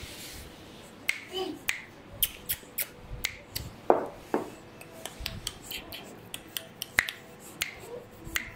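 Sharp clicks repeated irregularly, about three a second, starting about a second in; the loudest two, a little before halfway, are fuller and lower.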